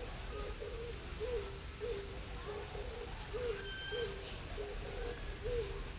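A bird giving a steady series of short, low hooting calls, about two a second, each rising and then falling in pitch. A few faint, higher chirps come in a little past halfway.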